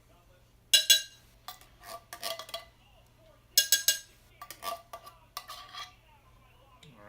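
Metal spoon scraping cream of chicken soup out of a can and knocking against the can and the crock-pot rim: a series of sharp clinks with a brief ring, the loudest about a second in and again near the middle, with softer scraping between.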